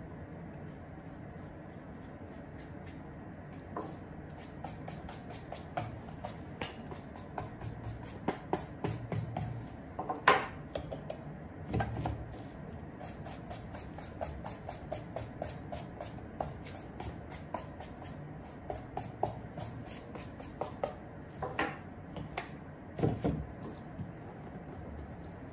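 Handling noise from leather-and-rubber-soled suede shoes being moved and set down on a plastic-sheeted tabletop: scattered light clicks, rustles and knocks, with heavier thumps about ten, twelve and twenty-three seconds in.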